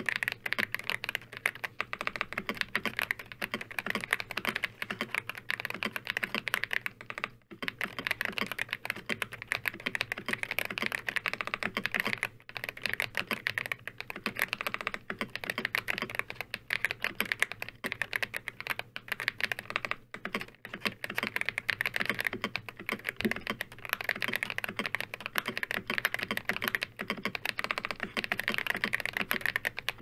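Fast, continuous typing on a mechanical keyboard with stock, unlubed Ajazz Banana linear switches, the keys clacking in a dense stream that pauses briefly three times.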